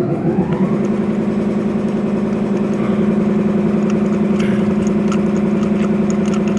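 Audi Q7's 4.2 V8 FSI engine starting and then idling steadily. Its pitch rises during the first second as it settles, with a light ticking over the idle.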